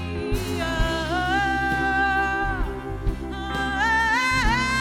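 A woman singing long, wordless held notes that slide and waver with vibrato, over a band's accompaniment with a steady bass. There are two long phrases, with a short break near the middle.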